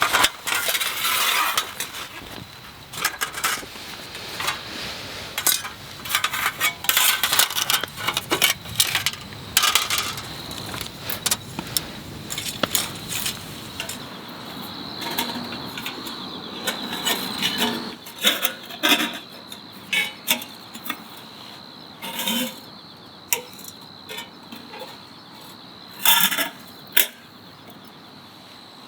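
Metal parts of a compact folding fire stove, the Nature Stove Large, clinking and clattering as they are handled and fitted together, among irregular knocks and rustling.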